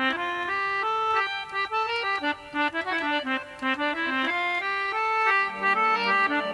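Irish traditional music: a lively instrumental tune of quick, short notes, with lower accompanying notes joining about five and a half seconds in.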